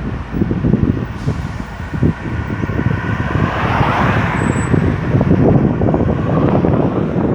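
Busy highway traffic, with one vehicle swelling up loud and passing about halfway through, over gusts of wind on the microphone.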